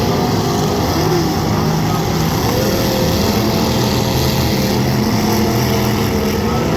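Several car engines running together at a steady, loud level, with pitches that shift up and down slightly as the cars run.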